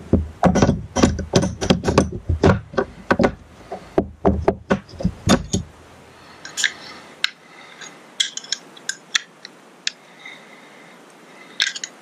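Metal hand tools clinking and knocking: a quick, irregular clatter of wrenches and sockets being picked through for about six seconds, then only a few scattered clicks.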